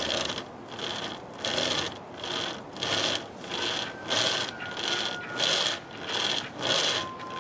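A chainsaw chain with wooden stick handles, used as a two-handled pull saw, sawing through a sapling's trunk: the chain's cutters rasp through the wood in a steady back-and-forth rhythm of about two strokes a second.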